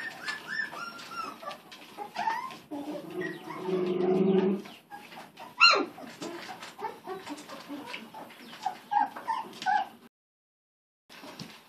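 Miniature beagle puppies, not yet six weeks old, whimpering and yipping in short high squeaks. A longer, lower cry comes about three seconds in, then a sharp yelp falling in pitch just before the middle. The sound drops out for about a second near the end.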